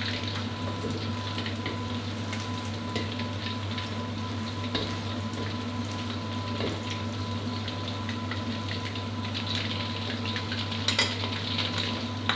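Chicken wings deep-frying in hot oil in a wok, sizzling and crackling steadily as a wire mesh skimmer stirs them; the wings are turning golden and nearly crisp. A couple of sharper clicks come near the end.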